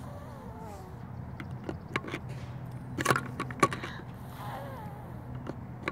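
A few sharp plastic clicks and knocks as bubble wands are handled and tapped against a plastic bubble tub, over a steady low hum.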